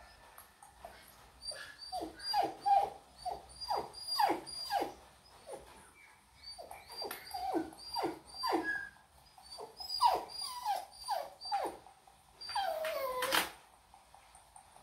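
Puppies whimpering and crying in a quick run of short, high cries, each falling in pitch, played through a laptop's speaker. A longer falling cry comes near the end.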